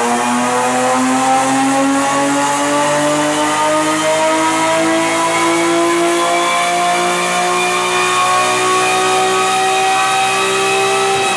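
BMW E36 M3 rally car's straight-six engine pulling under load on a dyno, its revs climbing slowly and steadily at a constant, loud level.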